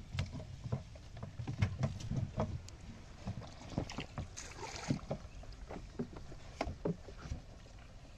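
Small wooden boat being poled through shallow flood water: irregular knocks and thuds from the plank deck and hull.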